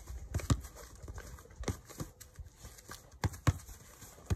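Soccer ball being passed against a glulam wood block and taken back on the rebound in a two-touch drill: a series of sharp thuds of foot on ball and ball on wood, some in quick pairs.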